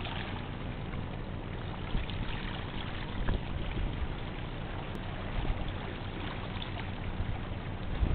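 Seawater lapping and sloshing against shoreline rocks, with a few louder splashes.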